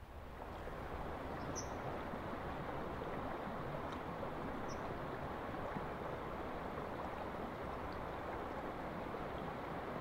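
River rapids rushing steadily, fading up within the first second and then holding level.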